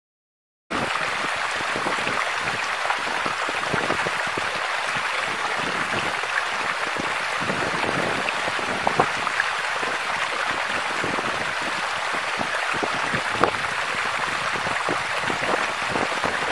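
Steady hiss of running water, trickling with scattered small drips and ticks. It starts abruptly about a second in.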